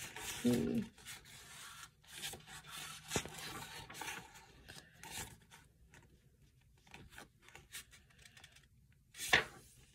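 Pages of a paperback book being flipped and rubbed in short, irregular rustles, with a louder swish near the end.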